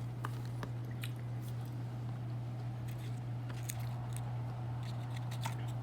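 Faint crunches and mouth clicks of someone chewing a poke nacho on a crisp wonton-wrapper chip, over a steady low hum.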